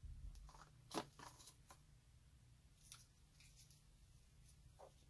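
Faint clicks and crinkles of small paint tubes being handled against a clear plastic paint-set tray, a few light taps spread through the quiet.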